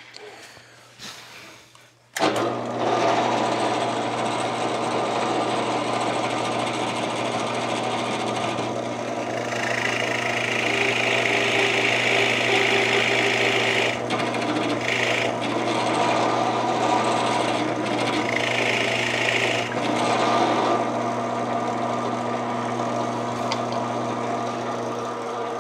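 Drill press motor switched on about two seconds in and running steadily, with a 1¼-inch Forstner bit boring a shallow recess into maple. Louder cutting comes in two spells around the middle as the bit bites into the wood, and the motor runs on unloaded near the end.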